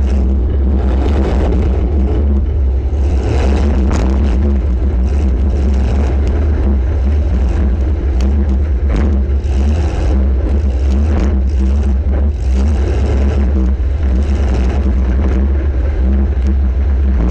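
Demolition-derby compact car's engine running loud, with a heavy, steady low rumble, heard from a camera mounted on the car. Scattered knocks and clatter sound over it.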